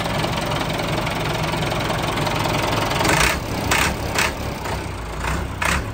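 Massey Ferguson 385 tractor's four-cylinder diesel engine idling steadily, freshly started after standing for many days. In the second half there are several short, sharp knocks.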